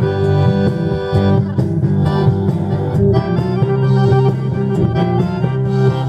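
Live blues band playing, with electric guitars, accordion and drums keeping a steady beat.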